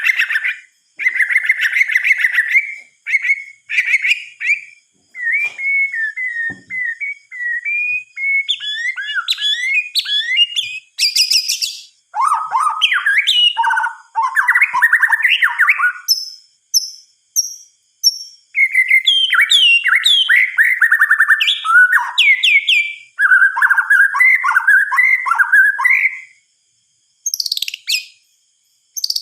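White-rumped shama (murai batu) singing a long, varied song of whistled phrases and rapid runs of notes, with short pauses between phrases and a high, buzzy phrase about a third of the way in.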